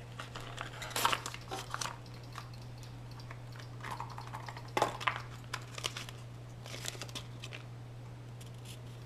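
Packaging rustling and crinkling as it is handled, with a few light knocks in irregular clusters, over a steady low hum.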